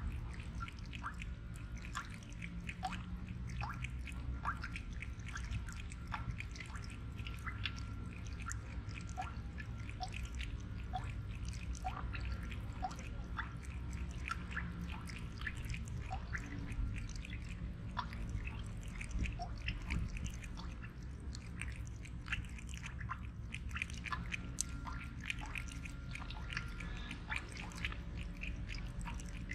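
Domestic cat lapping water from a thin faucet stream: a long run of irregular wet licking clicks, one or two a second, over a low steady rumble.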